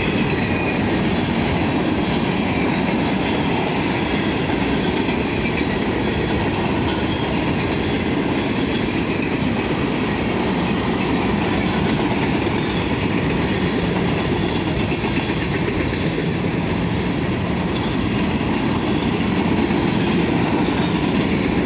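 A BNSF manifest freight train passing at speed, its cars rolling by with a steady, unbroken noise of steel wheels on rail.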